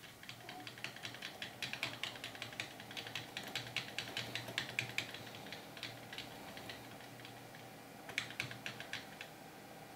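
Computer keyboard's F11 key tapped rapidly over and over, several presses a second, to get into the BIOS while the PC starts up. After a pause comes another short run of taps near the end, over a faint steady hum.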